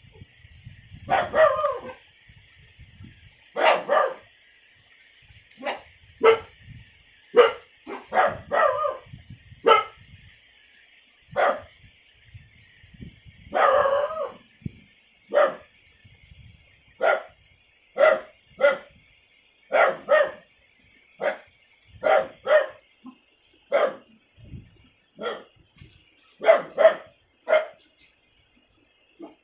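Young puppy barking over and over: about two dozen short barks, single or in quick pairs, at uneven intervals of a second or so.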